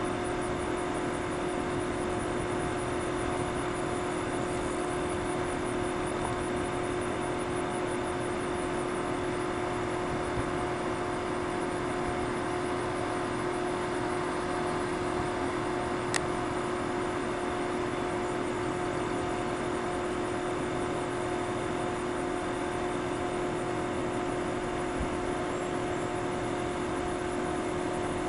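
Steady rushing of river water spilling over a low-head dam, an even unbroken noise, with a steady low hum running through it and one sharp tick about two-thirds of the way in.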